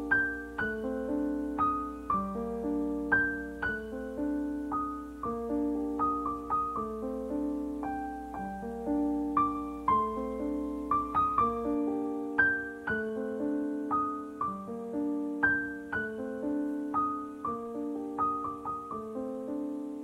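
Background music: a slow, gentle piano piece, a steady run of single notes over held lower chords.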